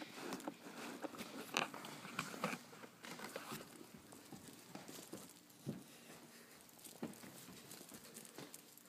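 Faint handling noise: scattered small taps, clicks and rustling, with a few sharper knocks in the first three seconds.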